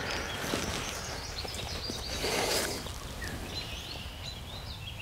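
Outdoor field ambience: a steady hiss of wind and rustling, with faint bird chirps near the end and a brief louder rustle about two seconds in.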